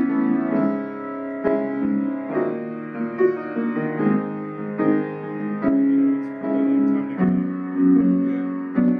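Solo piano playing a slow piece, with a new note or chord struck a little more than once a second.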